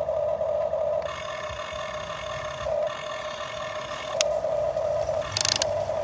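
Radio-controlled model excavator's motor and hydraulic pump whining steadily, the whine shifting in pitch and strength as the controls change. A sharp click comes about four seconds in, and a short hiss-like burst comes near the end.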